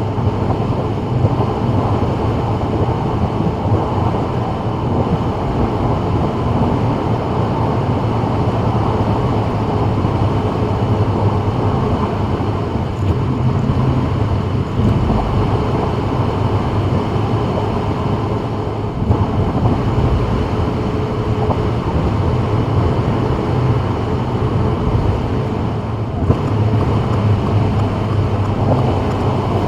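Steady road noise of a Subaru WRX cruising on a wet freeway: a low, even drone of tyres and engine with hiss from the wet road surface.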